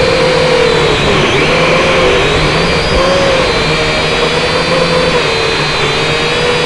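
M:TECH Sky Drone Plus quadcopter's small electric motors and propellers whining loudly and steadily, the pitch dipping and rising again and again as the throttle changes in flight.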